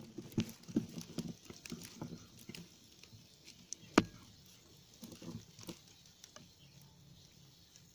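Suppressed PCP air rifle firing once about four seconds in, a single sharp crack that is by far the loudest sound. Scattered light clicks and knocks come before the shot and a few more just after it.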